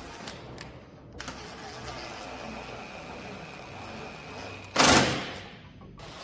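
Cordless impact gun on its low speed spinning a bolt in with a steady whir and thin whine, then a brief loud burst of hammering about five seconds in as the bolt seats.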